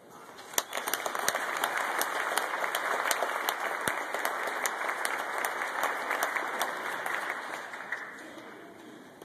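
Audience applauding as a choir piece ends. The clapping builds within the first second, holds, and dies away over the last couple of seconds.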